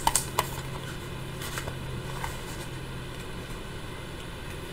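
Faint rustling of paperback pages as a tarot guidebook is leafed through, a few soft flicks of paper, over a low steady hum that stops about three and a half seconds in.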